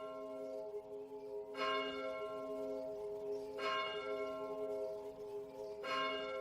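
Bell-like chime tones in the intro of a pop track, struck three times about two seconds apart, each ringing on with several steady overtones.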